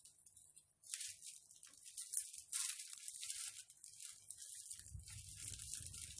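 Foam and plastic packaging rustling and crinkling as a parcel is unwrapped by hand, in irregular bursts that start about a second in.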